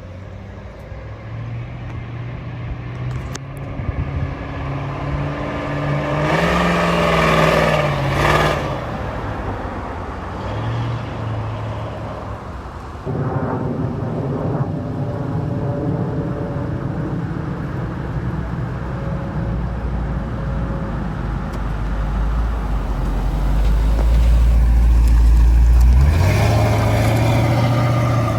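V8 pickup truck driving: the engine revs up about a quarter of the way in, settles to a steady run, builds to a loud low rumble and picks up revs again near the end.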